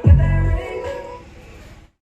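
Song played through a DJ PA rig of JBL and Studiomaster top speakers with RCF double bass cabinets, being sound-checked. It opens with a heavy bass hit, then fades and cuts off abruptly just before the end.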